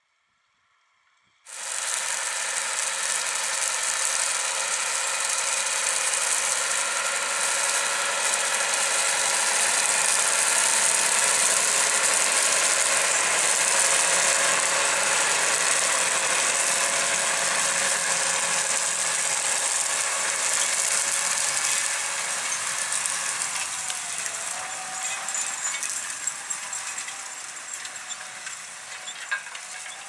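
John Deere 7310R tractor ploughing with a seven-furrow Kverneland BE 100 plough as it passes close by, its engine running under load. The sound starts suddenly about a second and a half in, is loudest as the tractor goes past, and fades over the last several seconds as it moves away.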